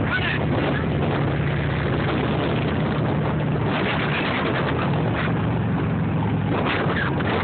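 Several heavy touring motorcycles riding slowly in formation, their engines running at low revs with a steady low drone.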